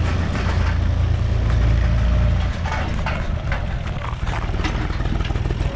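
UTB 445 tractor's diesel engine running as it passes close by pulling a trailer, its engine still cold. The low engine rumble is strongest for the first couple of seconds, then drops off as the tractor moves away, with sharp rattles throughout.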